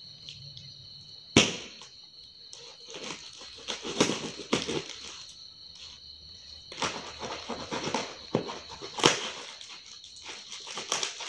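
A blunt knife sawing and scraping through the cardboard wrapping of a tube-shaped parcel, in irregular strokes with rustling of the paper and a few sharp knocks, the loudest about a second and a half in and about nine seconds in.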